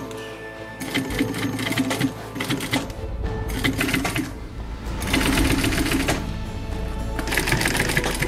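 Industrial sewing machine stitching through leather trim, in short fast runs with pauses between, over background music.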